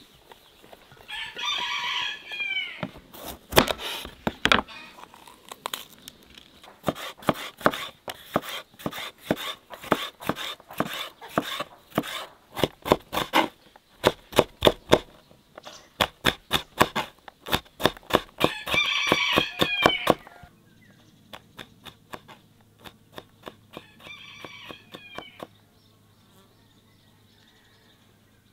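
A knife chops red bell peppers on a wooden cutting board in quick runs of sharp knocks, which thin out and stop shortly before the end. A bird calls briefly three times: near the start, about two-thirds of the way through, and once more soon after.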